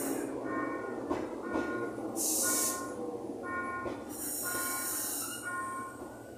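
Toshiba-built Urquiza line electric train pulling into the platform and slowing: a high, fixed-pitch squeal that cuts in and out over the rumble of the wheels on the rails. It is broken twice by loud bursts of hiss, the first and loudest about two seconds in.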